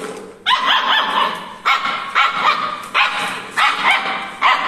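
Long-coated German shepherd puppy, about six weeks old, yapping: a run of about seven high-pitched barks in quick succession.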